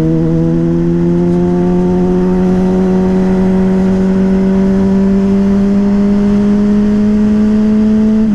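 Yamaha Fazer 600 inline-four with an aftermarket WR slip-on exhaust, pulling in one gear with its note climbing slowly and steadily, then dropping abruptly at the end as the throttle is closed or a gear is changed. Wind rushes underneath.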